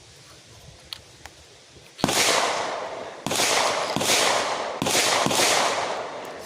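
AR-15 rifle chambered in .350 Legend firing about five shots in fairly quick succession, starting about two seconds in, each report echoing and dying away before the next.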